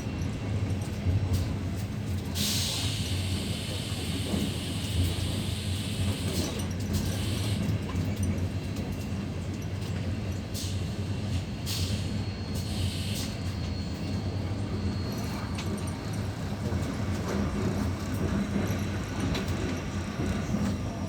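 A passenger train running along the rails, heard from inside the carriage: a steady low rumble of wheels and car body. About two and a half seconds in, a loud hissing rush lasts roughly four seconds, and a few shorter hisses follow later.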